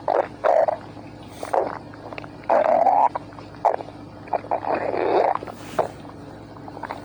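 Stomach growling: an irregular string of short rumbles and clicks, with longer rumbles about two and a half seconds in and around five seconds.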